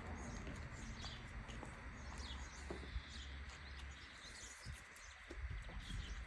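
Small birds chirping, many short calls scattered throughout, over a steady low rumble.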